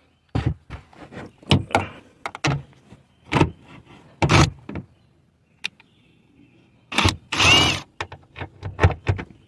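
Irregular clunks and knocks of a tool and hands working two 8 mm fasteners off a car's tail light assembly, with a longer scraping, rubbing sound about seven seconds in.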